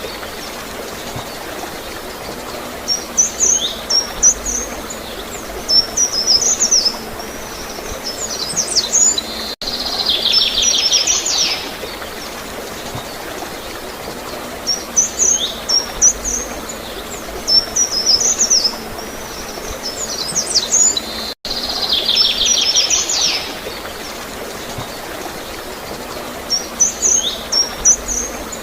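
Steady gurgling flow of water under songbirds: a fast, evenly pulsed trill followed by clusters of short high chirps. The same birdsong sequence repeats about every twelve seconds, with abrupt cuts where the recording loops.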